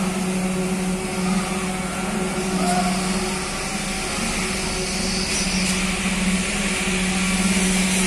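Steady drone of heavy machinery running at a construction site, an even low hum over a broad hiss with no let-up.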